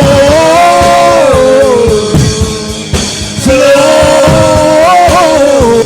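Gospel song: a singer holds two long, gliding notes over a band with drum kit.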